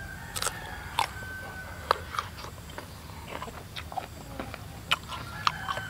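Crisp biting and chewing of raw young mango slices, with irregular sharp crunches.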